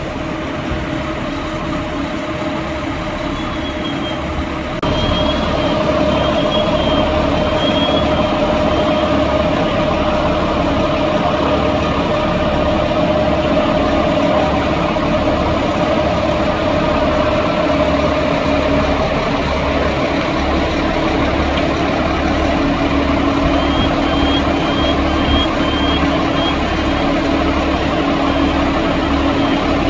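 Scania fire truck's diesel engine running steadily while driving its water pump, a constant hum over a low throb. It gets louder about five seconds in.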